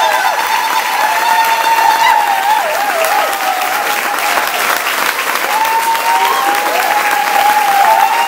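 Audience applauding steadily, with high wavering cries and cheers from the crowd over the clapping.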